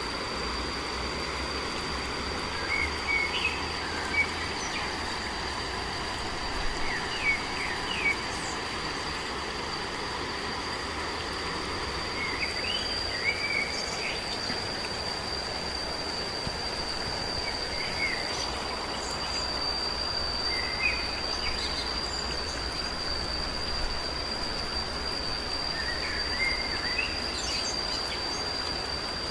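Countryside ambience: a steady high insect drone under a light hiss, with short bird chirps in small clusters every few seconds.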